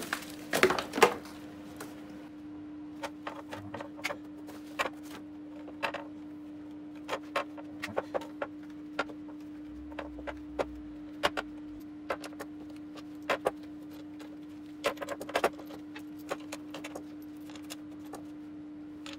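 Scattered light clicks and taps, some in quick clusters, of a rubber gasket and small metal parts being handled as a new gasket is fitted into a valve cover, over a steady hum.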